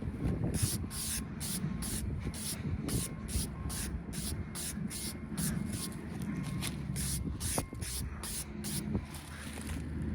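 Chainsaw on a chainsaw mill running steadily while cutting white oak, with a rhythmic hiss about three to four times a second that fades near the end.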